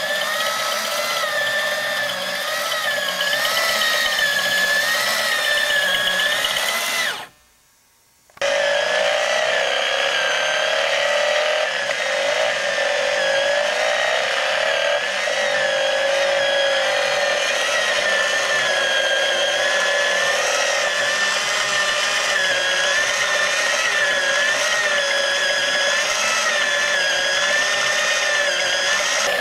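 Small electric motor and plastic gears of a BMW R90S clear-plastic engine model kit running, giving a steady whine whose pitch wavers up and down. The builder painted the transmission gears and feels they move poorly. The sound cuts out for about a second some seven seconds in.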